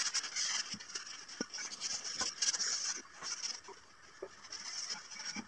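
Cloth rubbing back and forth over bare pine wood while wiping on finish, a scratchy rubbing hiss that comes and goes with each stroke, with a few light knocks as the wooden stand is handled.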